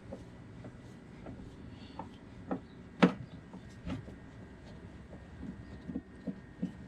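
Scattered clicks and knocks of hands and tools working on a car's plastic airbox, with one sharper knock about three seconds in.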